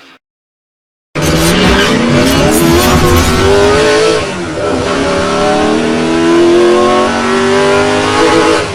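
Harley-Davidson Milwaukee-Eight V-twin engine running loud under throttle, starting about a second in. Its pitch climbs, dips briefly near the middle, then climbs again.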